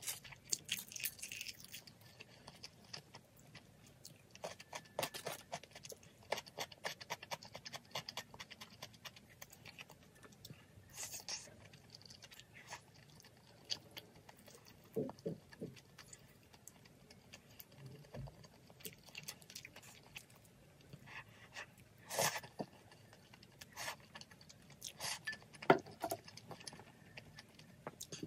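Close-up eating sounds: chewing, with many small irregular clicks and taps of chopsticks and bowl against the plastic food tray, a few louder ones near the end.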